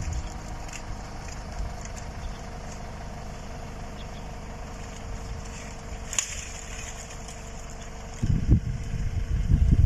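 Farm tractor engine running steadily at low revs, with one sharp click a little past the middle. A louder, rough low rumble comes in near the end.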